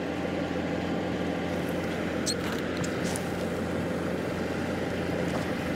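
Petrol poured from a plastic bottle into a motorcycle's fuel tank, over the steady hum of an idling engine.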